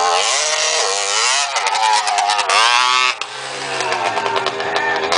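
125cc dirt bike engines revving, the pitch rising and falling as the throttle opens and closes, and dropping away a little after three seconds.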